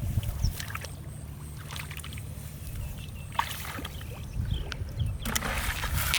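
Water sloshing and splashing over a steady low rumble, with a louder, noisier splash in the last second.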